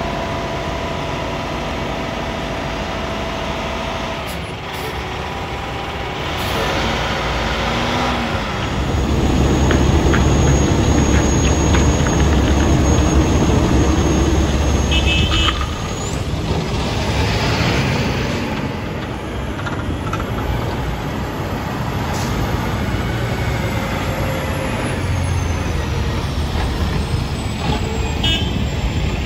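Heavy diesel trucks running at a road-paving job, a dense low engine rumble that grows louder about nine seconds in and eases off near sixteen seconds.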